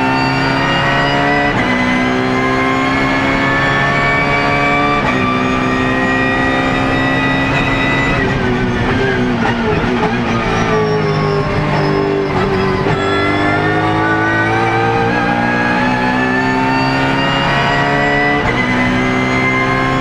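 BMW Z4 GT3's 4.4-litre V8 at full throttle, heard from the cockpit. The pitch climbs through the gears and drops sharply at each upshift. About halfway through it comes off the throttle for a few seconds and the pitch sinks, then it pulls hard through the gears again.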